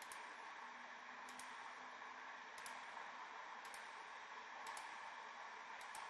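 Faint steady hiss with soft, sharp clicks about once a second: computer mouse clicks placing the vertices of a line being drawn.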